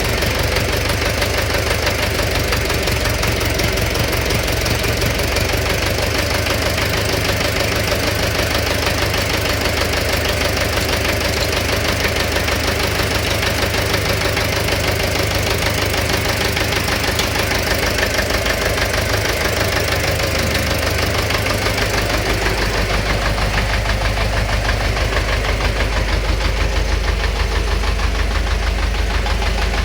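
Engine running with a fast, regular knock heard through its note: the engine knock that is the subject. About 21 seconds in the engine note drops lower.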